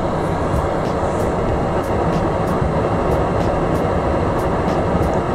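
Solder fume extractor running: a steady rushing of air with a low rumble.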